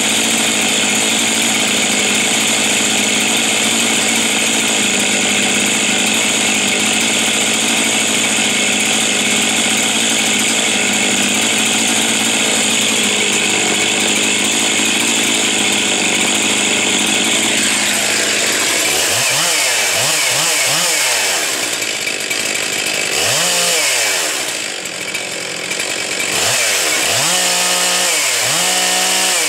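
Big-block Husqvarna 372 XPW chainsaw's two-stroke engine running steadily at high revs for about the first two-thirds. It then drops back to idle and is blipped up and down several times in quick throttle revs.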